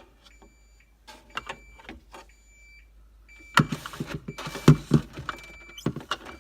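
Handling noises at the refrigerator: scattered knocks and taps, with a busier burst of clatter and rubbing about halfway through and a sharp click near the end. Faint high thin tones come and go in the background.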